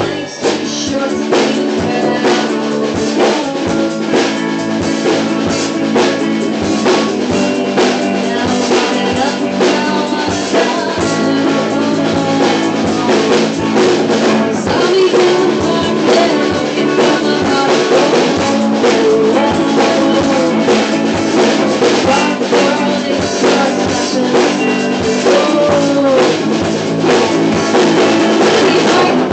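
Rock band playing live: a drum kit keeping a steady beat with rimshots, over electric guitar and bass guitar.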